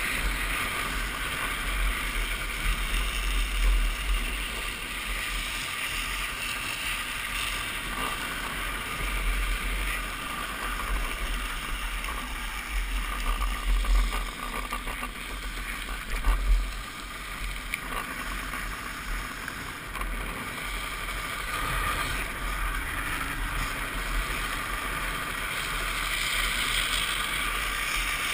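Drift trike rolling and sliding downhill on asphalt, its wheels hissing on the road under wind rush on a helmet-mounted microphone. There are louder bursts a few times, near 4, 14 and 16 seconds in.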